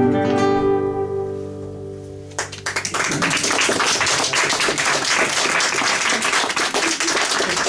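The final notes of a flute and classical guitar ring out and fade away. About two and a half seconds in, an audience breaks into applause that carries on to the end.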